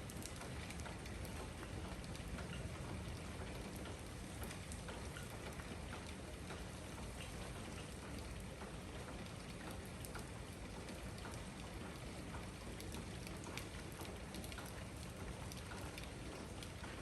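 Steady rain shower falling, with many individual drops ticking on hard surfaces over an even hiss.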